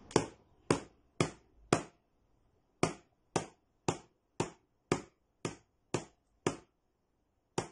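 A hairbrush tapping a small box as a hand percussion instrument, playing a 3/4 rhythm exercise of quarter notes and rests. There are thirteen sharp taps at a steady beat of about two a second, with a one-beat rest after the fourth tap and another just before the last.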